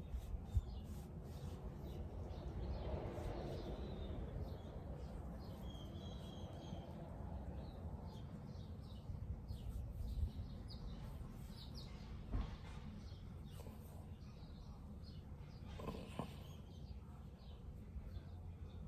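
Outdoor ambience of birds chirping on and off over a steady low rumble, with a few short soft knocks.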